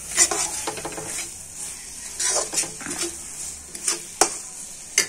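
Metal spatula scraping and knocking against a metal kadai as a thick tomato masala is stirred, with a light sizzle of the masala frying in oil and ghee underneath. A few sharp clacks of the spatula on the pan come near the end.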